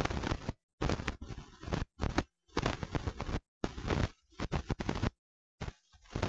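Audience clapping, a dense patter of many hands, with the sound cutting out abruptly to dead silence several times.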